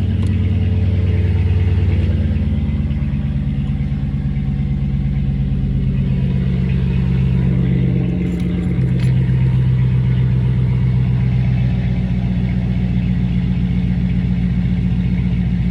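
Dodge Charger with a mid-muffler delete idling steadily, a low exhaust rumble; the idle note shifts slightly about eight seconds in.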